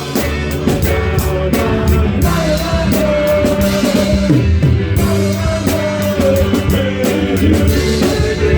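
Live band playing an upbeat rock-style number: a drum kit keeping a steady beat with regular cymbal and snare hits, bass underneath, and a singing voice holding long notes over it.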